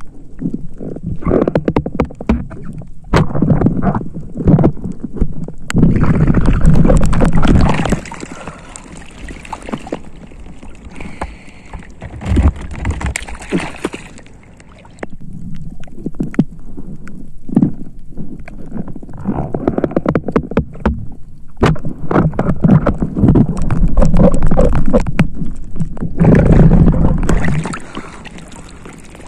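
Water sloshing and gurgling close to the microphone in irregular surges, with scattered clicks and knocks, as a spearfisher moves through the sea. It is quieter for a stretch in the middle.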